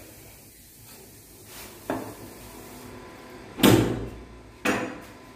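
Steel kitchen utensils knocking on a wooden board: a light tap about two seconds in, then a louder knock with a low thump, and another knock about a second later.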